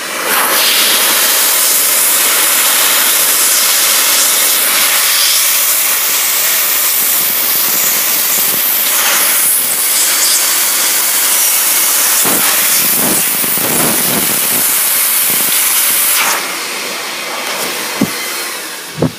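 Shop vac running on blow, its nozzle held to a laptop's fan vents, giving a loud steady rush of air. It is clearing dust from the CPU fan, which the owner blames for the laptop's overheating shutdowns. Near the end the rush drops in level, with a couple of short clicks.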